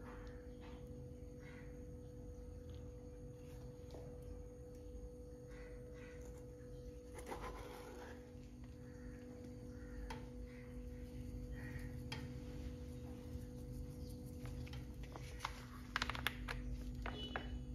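Quiet kitchen handling sounds: a plastic spatula sliding under a pizza in a nonstick frying pan and setting it on a ceramic plate, with soft scrapes and knocks, over a steady low hum. Near the end comes a quick run of sharp clicks and crinkles as a seasoning sachet is handled.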